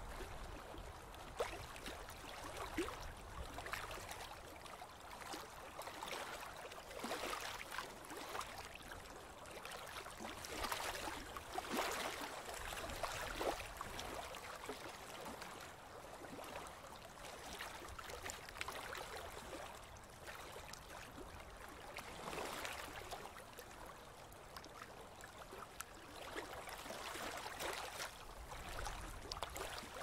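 River water flowing and lapping, many small splashes coming and going in irregular swells.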